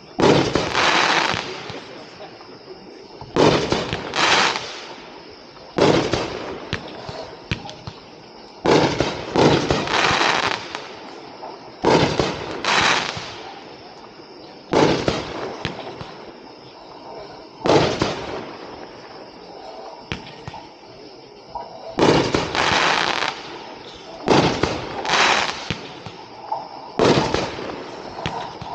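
Seattle Sizzle, a 20-shot 1.4G consumer fireworks cake, firing its shots. Sharp bangs come every second or two, often two in quick succession, and each dies away in a short hissing tail.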